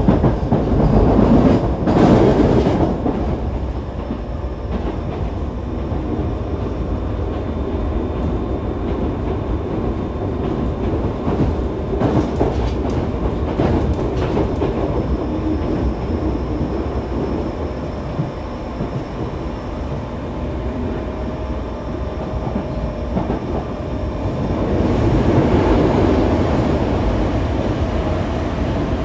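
Yokohama Municipal Subway 3000A-series train running, heard from inside the car: a steady rumble of wheels on rail with clacks over the rail joints. The Mitsubishi GTO-VVVF inverter gives a thin steady whine in the middle, and a whine that rises in pitch near the end.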